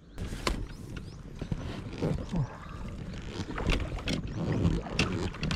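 Irregular knocks and clatter on a small fishing boat, with water movement around the hull, as the boat is handled and set moving.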